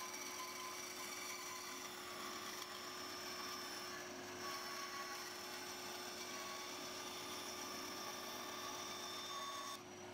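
Bandsaw running and cutting a curve in birch plywood, a steady hum that drops away suddenly near the end.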